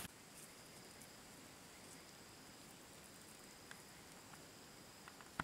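Near silence: faint outdoor ambience with a thin, steady high-pitched insect drone.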